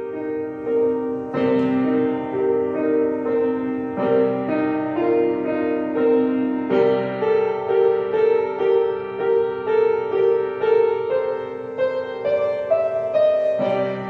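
Solo piano music: a steady pulse of repeated mid-register notes over held chords, with the harmony changing every few seconds.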